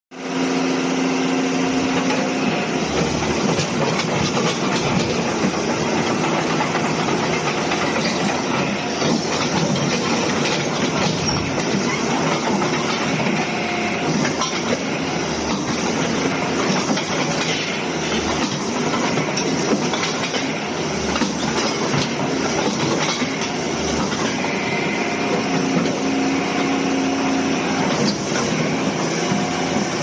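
Caterpillar 320C excavator's six-cylinder diesel engine running steadily under load as the hydraulic boom and arm work, with scattered knocks and clanks from the machine.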